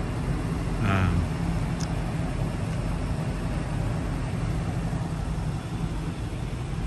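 Steady low rumble of a vehicle engine idling, with a short voice sound about a second in.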